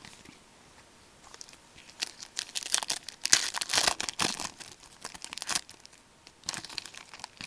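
A hockey card pack's wrapper being torn open and crinkled by hand: crackling bursts of tearing and crinkling start about a second in, loudest in the middle, with a short pause before more crinkling near the end.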